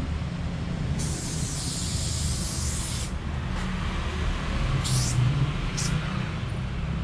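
Aerosol spray paint can hissing: one long spray of about two seconds, then two short bursts near the end, over a steady low rumble.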